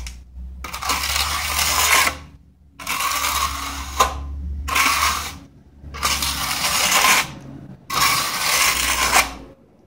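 Steel hand trowel scraping across wet concrete and the rim of a steel block mold, screeding the top level: about five scraping strokes of a second or so each, with short pauses between and a sharp click about four seconds in.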